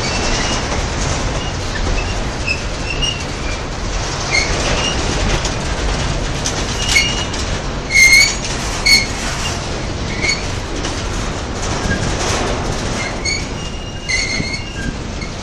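Empty freight cars (boxcars and a hopper car) rolling past on the rails: a steady rolling rumble and rattle of wheels on track. Several brief, high wheel squeals cut in, the loudest two in quick succession a little past halfway.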